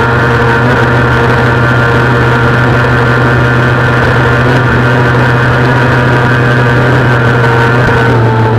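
Kawasaki ZX-6R's inline-four engine running loud at steady revs under a rush of wind noise. Near the end the pitch starts to drop as the revs fall.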